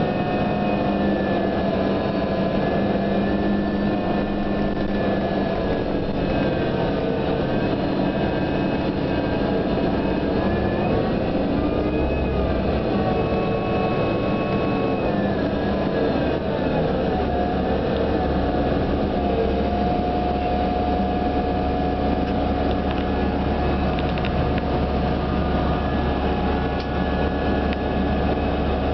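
Inside a New Flyer DE42LFA diesel-electric hybrid bus on the move: the drivetrain gives a whine of several tones that rise and fall together with speed. About seventeen seconds in the tones settle to a steady pitch over a deeper hum. The uploader calls the sound unique and does not know what makes it.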